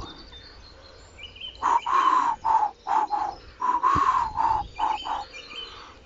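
A man whistling an imitation of a wood pigeon's cooing song in two phrases, each a longer note followed by a few shorter ones, to show the rhythm of the call.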